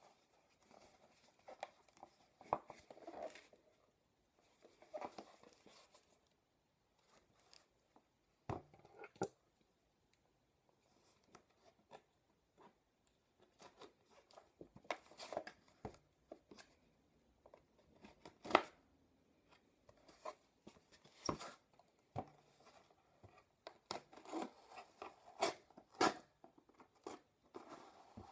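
Cardboard shipping box being handled, with irregular sharp knocks and clicks and bursts of scraping as its taped seams are cut open.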